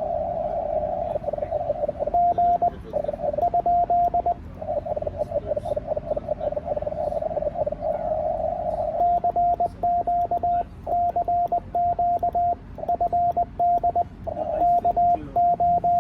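Morse code (CW) tones from a ham radio transceiver: steady-pitched dots and dashes keyed at a quick pace. They alternate with stretches of narrow, hissy band noise from the receiver.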